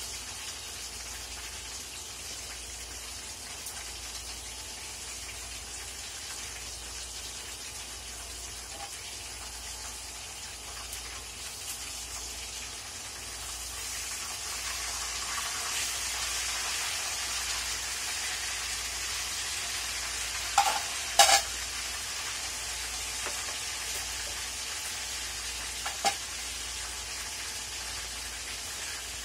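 Food sizzling and frying in a wok over a gas burner while it is stirred with a metal spatula, the sizzle growing louder from about halfway. Three sharp clanks of the spatula against the wok stand out, two close together about two-thirds of the way in and one more near the end.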